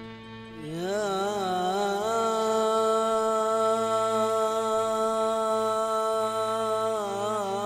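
Sufi religious chanting: a male voice enters about a second in with one long held note, sliding up and wavering at first and ornamented again near the end, over a steady instrumental drone.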